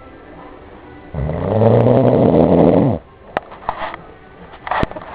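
One long, loud snore about a second in, a low buzzing tone lasting about two seconds, followed by quieter breathing and a few small clicks.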